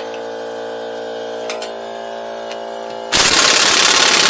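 Kobalt 1,000 ft-lb air impact wrench hammering on a lug nut for under two seconds, starting about three seconds in, loosening the wheel. Under it runs a steady mechanical hum with a couple of faint clicks.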